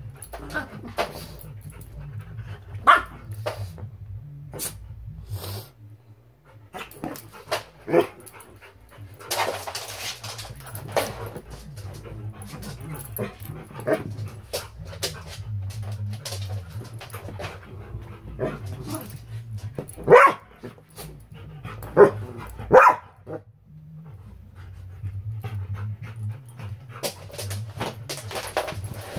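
Two dogs, a Labradoodle and a Schnauzer mix, play-fighting, with several short, sharp barks and yips scattered through; the loudest are three close together about two-thirds of the way in.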